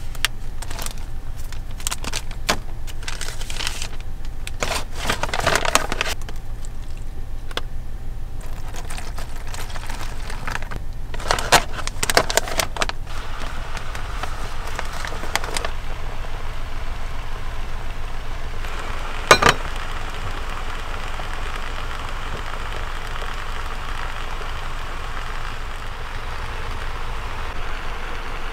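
Plastic-foil pouches of a self-heating instant meal crinkling and rustling as they are handled and opened, with bursts of crackling and one sharp click about two-thirds of the way through. A steady low rumble runs underneath, and a steady hiss joins in from about the middle.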